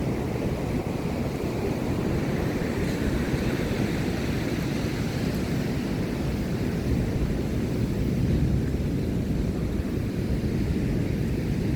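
Steady wash of ocean surf mixed with wind buffeting the microphone: an even, rumbling noise with no distinct events.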